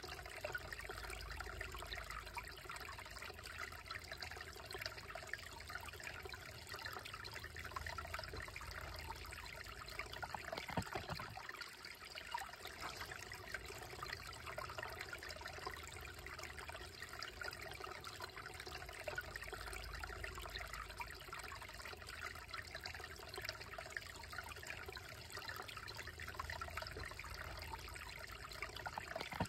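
Shallow creek trickling steadily over rocks through a small cascade between boulders. A single brief knock sounds about a third of the way through.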